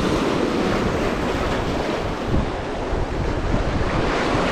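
Surf washing along a rocky seashore with wind rumbling on the microphone, a steady noise.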